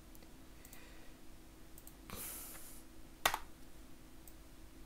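Computer keyboard and mouse clicks as a web address is entered and opened: a few scattered light clicks, a brief rustle about two seconds in, then one sharp click a little after three seconds. A faint steady hum runs underneath.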